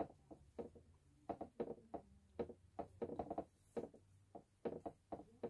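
Paintbrush dabbing and tapping on a canvas coated in wet acrylic paint and water: a string of soft, irregular taps, two or three a second.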